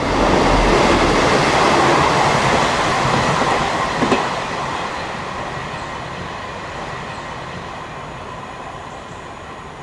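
A train passing close by and receding: a loud rushing rumble that fades steadily, with a short sharp clunk about four seconds in.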